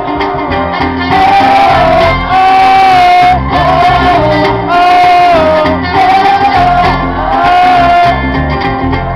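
Live band playing: a trumpet carries the melody in a series of long held phrases over strummed guitars and cajón.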